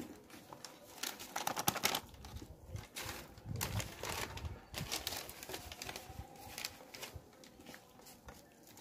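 A thin plastic water bottle crinkling and crackling in the hand as water is poured from it onto potting soil, in irregular spells with a few clicks, busiest in the first half.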